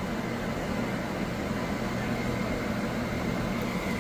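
Steady low mechanical hum with a faint high whine held under it.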